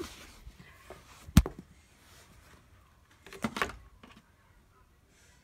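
A single sharp knock, then, about two seconds later, a short burst of rubbing and bumping: handling noise from a phone being moved around.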